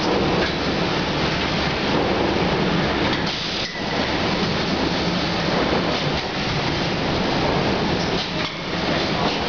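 Rotary high-frequency creasing and cutting machine running, a steady dense hiss over a low hum, with brief dips twice.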